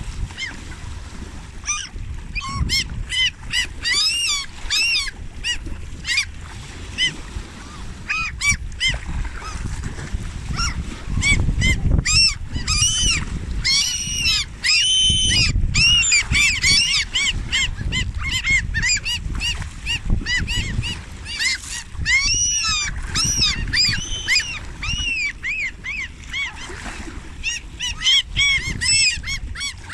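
A flock of geese honking, many short calls overlapping one another, thickest around the middle and again a little past two-thirds through.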